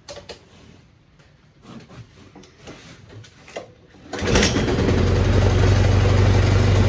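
A snowblower's small engine, its carburetor just cleaned, catches about four seconds in after a few light clicks and knocks, then runs loud and steady.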